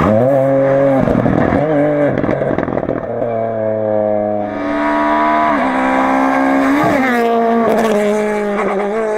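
Ford Fiesta rally car passing close at speed, then driving away through the bends, its engine revs repeatedly dropping and climbing again.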